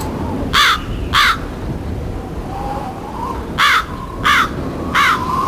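Crow cawing: five short, harsh caws, a pair about half a second apart early on and then three more spaced about two-thirds of a second apart, over a low steady background noise.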